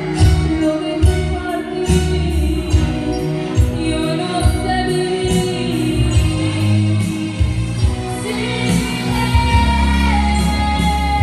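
A woman singing into a microphone over amplified backing music with a steady beat.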